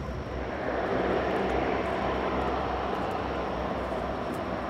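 The four Allison T56 turboprop engines and propellers of a P-3C Orion patrol aircraft run as a steady propeller drone while it rolls on the runway after landing, louder from about a second in.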